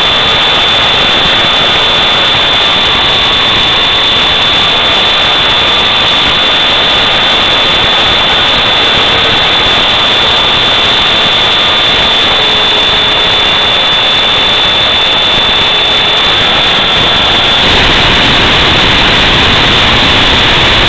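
Onboard audio from an FPV model aircraft in flight: a loud, steady rush of propeller and wind noise with a faint motor whine wavering in pitch, over a constant high-pitched tone. The rushing grows fuller about three-quarters of the way through.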